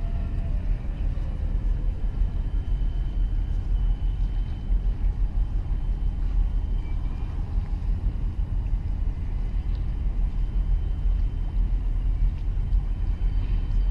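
Wind buffeting the microphone: a steady low rumble that flutters rapidly in loudness, with a faint thin high tone running underneath.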